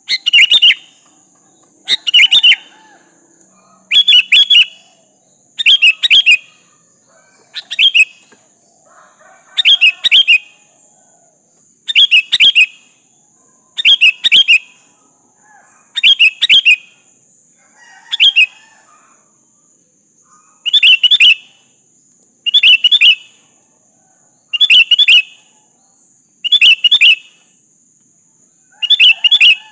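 Sooty-headed bulbul (kutilang) singing a short phrase of quick notes about every two seconds, over a steady high hiss.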